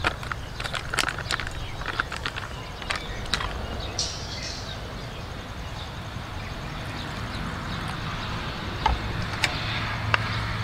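Light taps and rustles of a plastic packet of flour being shaken out into a plastic bowl, then, from about the middle, a steady hiss of water being poured onto the flour.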